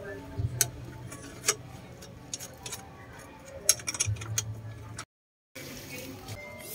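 Scattered, irregular light metallic clicks and taps of hand tools and car suspension parts being handled, with a brief dropout about five seconds in.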